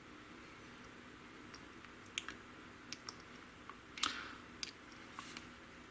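A handful of faint, sharp clicks and taps from small plastic model kit parts being handled on the work surface, starting about two seconds in.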